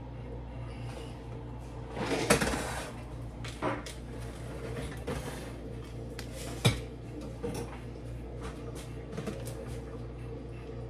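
Kitchen handling noise from pots, pans and utensils: a few scattered knocks and clatters as cookware is set down and moved, the sharpest about two thirds of the way through, over a steady low hum.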